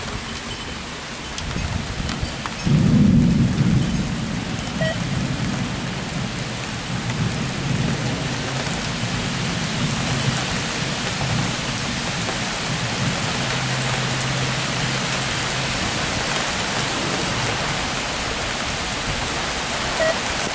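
Heavy rain falling steadily, with a sudden clap of thunder about three seconds in that rolls on as a low rumble for more than ten seconds, slowly dying away.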